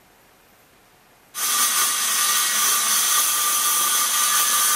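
Handheld circular saw cutting through a sheet of plywood: a steady high whine over a wood-cutting rasp. It comes in suddenly about a second in, after near-quiet room tone.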